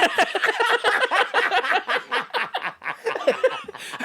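Men laughing hard in rapid, breathy bursts.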